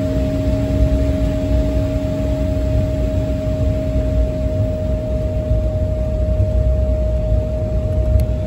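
Cabin noise of a regional jet taxiing: steady jet engine hum and low rumble with a constant mid-pitched whine. A second, lower whine fades out about halfway through.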